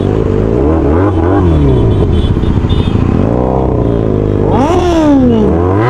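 Motorcycle engines revving, their pitch climbing and falling again several times, with more than one engine revving at once near the end.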